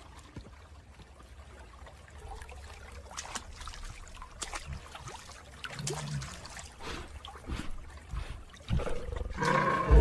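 Parasaurolophus sound effect: soft, irregular clicking and rustling, a short low grunt-like call about six seconds in, then a louder pitched animal call that swells up in the last second.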